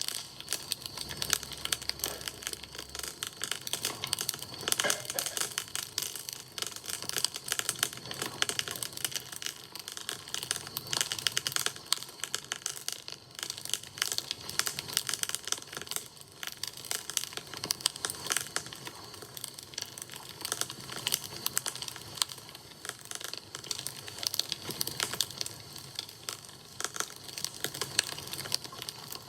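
Wood campfire crackling, with dense, irregular pops and snaps that never let up.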